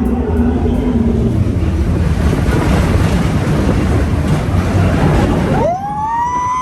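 Expedition Everest roller-coaster train running at speed: a loud, steady rush and rumble of the cars on the track. Near the end the rumble drops away and a rider's scream rises sharply and is held.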